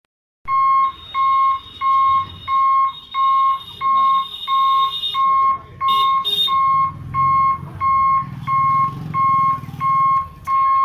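Railway level-crossing warning buzzer beeping in an even rhythm, about one and a half beeps a second, sounding while the gate barriers are down to warn of an approaching train. A low rumble runs under it for a few seconds past the middle.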